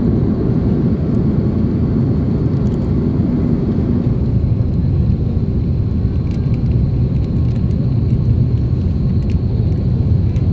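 Airliner cabin noise during the night approach: the steady low rumble of the engines and rushing air, heard from a window seat, with a faint high whine.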